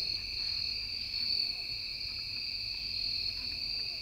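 Steady high-pitched insect chorus: a continuous trilling with no break.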